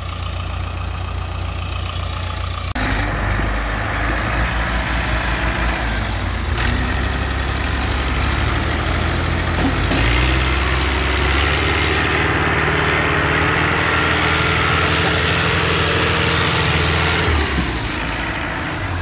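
Diesel tractor engines working hard under load, hauling a log-laden trailer up out of mud. The engine note rises about three seconds in and again about ten seconds in, then eases off near the end.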